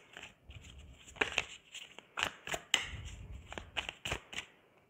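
A deck of oracle cards being shuffled by hand: the cards slap and slide against each other in a string of irregular snaps with soft rustling between them.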